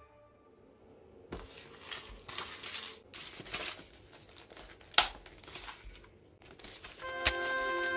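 Plastic film wrapping crinkling and tearing as it is peeled off a Peyang cup yakisoba container, in irregular crackles with one sharp snap about five seconds in. Music comes in near the end.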